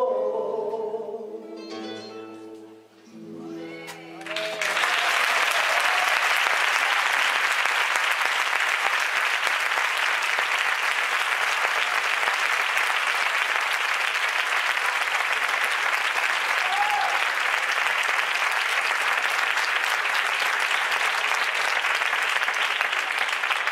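The last notes of a flamenco song, male voice and flamenco guitar, held and dying away. About four and a half seconds in, an audience breaks into loud, steady applause.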